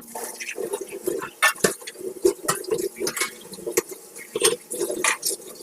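Water splashing and pouring, with frequent irregular clicks and knocks.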